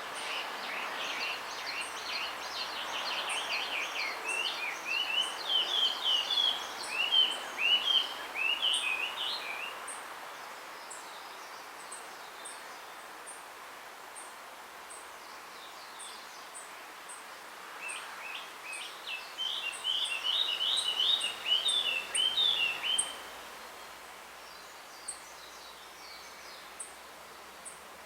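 Male blue rock thrush singing to court a female: two long phrases of rapid, varied warbling notes, the first in the opening ten seconds and the second about eighteen seconds in, over a steady background hiss.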